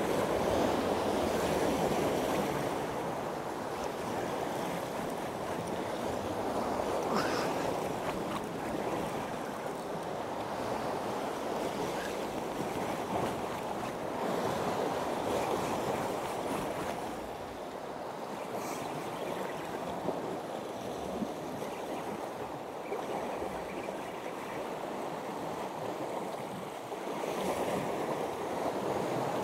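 Sea surf washing against a rocky shore, swelling and easing, with wind.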